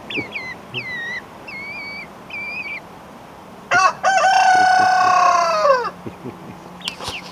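A rooster crowing once, a loud call of about two seconds that drops in pitch as it ends, after a series of short high chirps from the flock.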